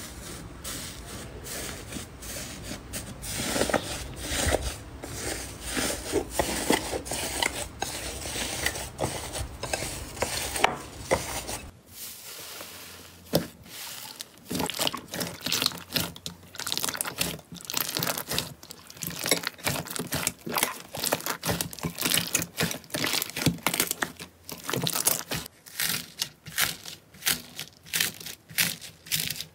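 Hands pressing, squeezing and kneading slime: a dense run of small crackles, pops and squelches. About twelve seconds in the sound changes to sharper, more separate pops as the slime changes from a fluffy slime to glossy slime and slime mixed with foam beads.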